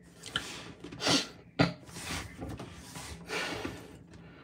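Phone-handling noise: several short swishing sounds with a sharp knock about one and a half seconds in.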